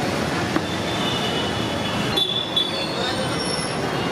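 Hot oil sizzling and crackling steadily in a large wok as battered chillies deep-fry, stirred with a slotted steel spoon. A thin high-pitched whine comes and goes above the sizzle.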